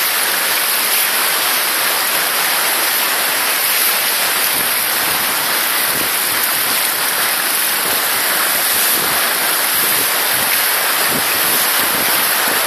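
Fast mountain stream rushing over big stones: a loud, steady rush of water.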